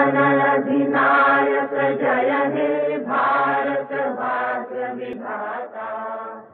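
Chant-like singing in long held phrases, dropping away near the end.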